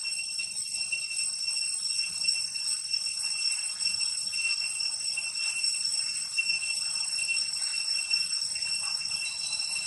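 A steady, high-pitched chorus of insects, several shrill tones held without a break.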